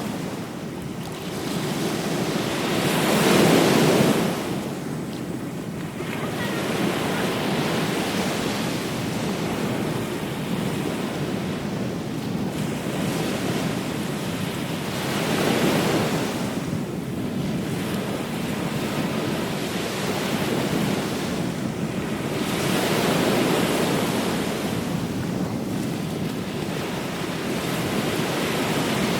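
Ocean surf: waves breaking and washing up the beach in a continuous hiss that swells and ebbs, with the biggest surge a few seconds in and smaller ones later.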